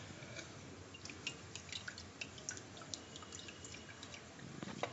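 Faint dripping and small splashes of tamarind water being poured into a pot of mashed chayote and moong dal, as scattered short ticks.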